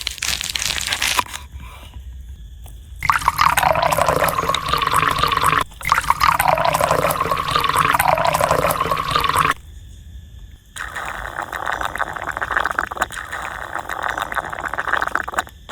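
Liquid pouring and splashing in several short takes that start and stop abruptly, the loudest from about three to nine and a half seconds in, with a brief break between.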